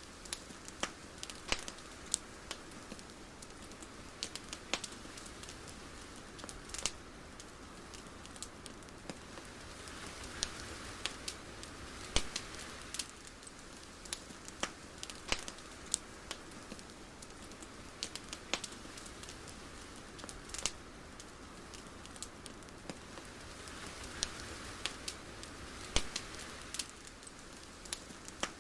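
Irregular sharp crackles and pops over a soft hiss that swells and fades twice.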